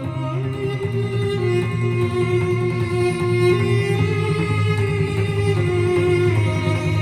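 Recorded music played back over Teufel M200 loudspeakers driven by a Harman Kardon HK 970 amplifier, picked up in the room by a recorder's built-in stereo microphones. The passage is held, string-like notes over a steady bass line.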